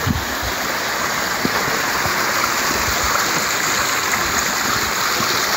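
Small creek running over rocks and splashing down little cascades: a steady rushing of water that grows slightly louder about a second in.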